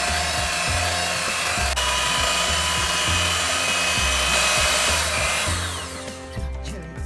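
Electric hand mixer running at speed, its wire whisk beaters whipping a thick cream and condensed-milk mixture with mango pulp; the motor whine and whisking noise die down near the end. Background music with a steady beat plays underneath.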